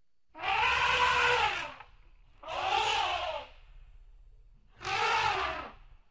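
Elephant trumpeting sound effect: three calls of about a second each, each rising then falling in pitch.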